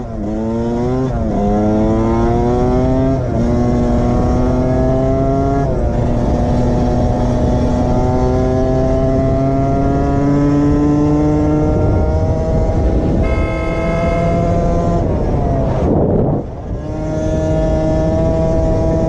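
Suzuki dirt bike engine accelerating hard through the gears, its pitch climbing and dropping back at each upshift, three quick shifts in the first few seconds, then a long steady climb. About 16 seconds in the engine note breaks off briefly before picking up again.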